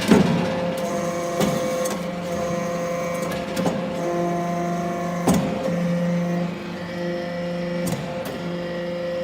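Hydraulic briquetting press for aluminium chips running: a steady motor-and-pump hum, broken by several sharp knocks spaced a second or two apart.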